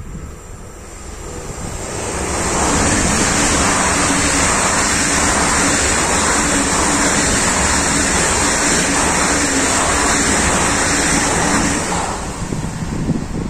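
A train passing at speed: its rail noise builds over about two seconds, stays loud and steady for about ten seconds, then falls away near the end.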